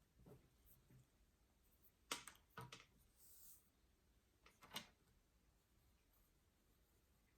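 Near silence in a quiet room, broken by a few faint clicks and knocks: two close together about two seconds in and one near the five-second mark, with a short soft rustle between them.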